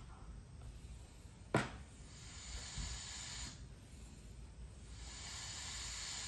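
Mityvac MV7201 hand-pumped fluid evacuator being pumped: a sharp click, then two long hissing strokes of air as the pump builds vacuum to draw oil out of the lawnmower engine.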